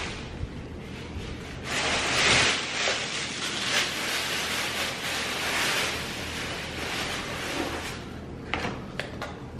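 Thin plastic takeout bag rustling and crinkling as a hand rummages in it. Near the end come a few light clicks as small plastic dipping-sauce cups are taken out.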